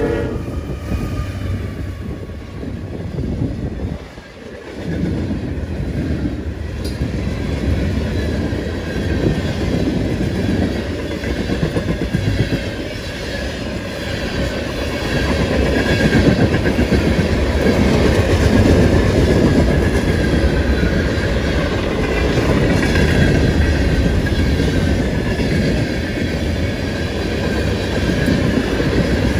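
Long freight train rolling past at speed: steel wheels clicking over rail joints under a steady heavy rumble and rattle of the cars, dipping briefly about four seconds in.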